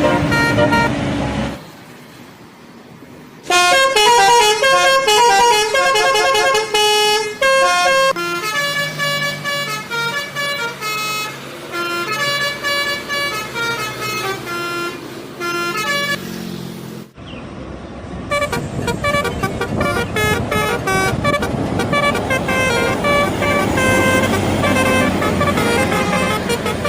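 Bus telolet horns, multi-trumpet air horns, playing quick tunes in stepped notes, several pitches sounding together. A short lull comes about two seconds in, and another brief break about 17 seconds in, before another horn tune plays.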